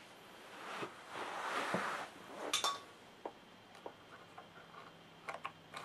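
A laptop RAM module being handled and fitted into a MacBook Pro's memory slot: a rustle of hands, then a few sharp little clicks and scattered light taps of plastic and metal as the module is seated.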